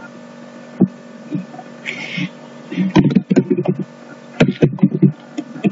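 A few computer mouse clicks over a steady electrical hum, with short bursts of low, half-spoken speech in the second half.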